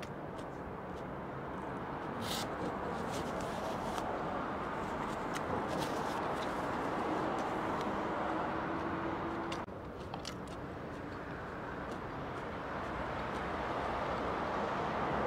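Steady hum of distant road traffic that slowly builds, with a sudden dip about ten seconds in and faint scattered clicks from eating and handling food.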